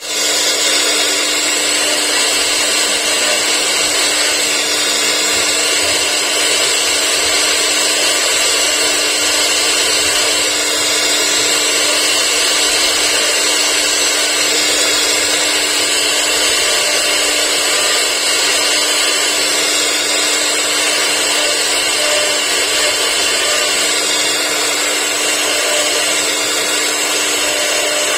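CIMC2040 CNC router spindle running steadily and cutting wood, a constant whine over a dense cutting hiss.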